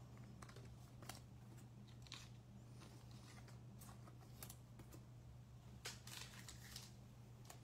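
Faint flicks and rustles of a stack of Select baseball cards being shuffled through by hand, card by card, over a low steady hum.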